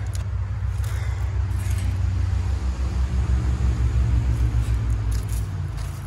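Outdoor heat pump condensing unit running: a steady low compressor and fan hum with a fast, even throb. Faint rustles of hands handling the unit's cabinet are heard over it.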